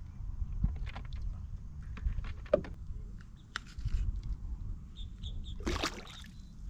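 Scattered light knocks and clicks from gear being handled in a kayak, over a steady low rumble, with a few short high chirps about five seconds in and a louder knock shortly after.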